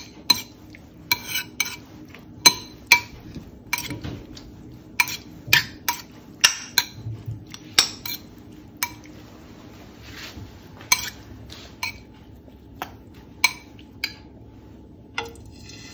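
Metal cutlery clinking against a bowl while raw shrimp are stirred and mixed with seasoning: repeated sharp, ringing clinks at irregular intervals, about one or two a second, thinning out near the end.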